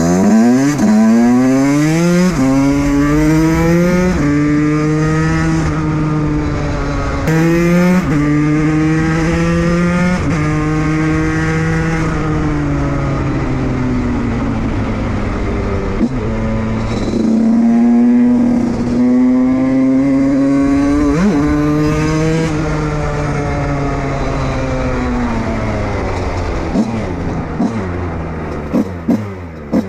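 Fantic TPR motorcycle engine accelerating hard, its pitch climbing and dropping back at each of several gear changes in the first ten seconds. It then eases off, pulls up through the revs again in the second half, and slows near the end with a few sharp pops.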